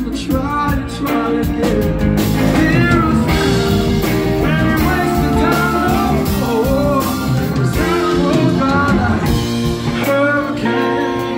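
Live band playing: electric guitar, bass, drums and keyboards, with a singer's voice over it at times.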